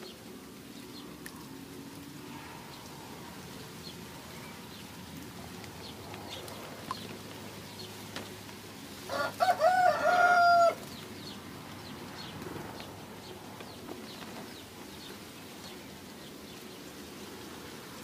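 A rooster crows once, about nine seconds in, lasting under two seconds: a broken start, then a long held final note. Faint chirps of small birds sound in the background.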